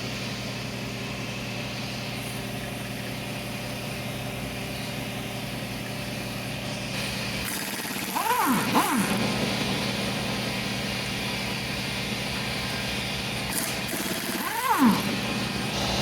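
Steady mechanical hum, with two short rising-and-falling animal cries, about six seconds apart.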